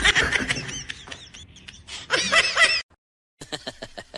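People laughing in short bursts, which stop abruptly about three seconds in; after a brief silence, a run of quick short sounds begins.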